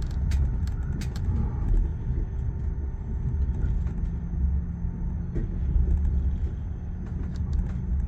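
Passenger train heard from inside the carriage, rolling slowly over the points of the station approach: a steady low rumble with scattered clicks and knocks from the wheels. A faint steady hum joins about two and a half seconds in.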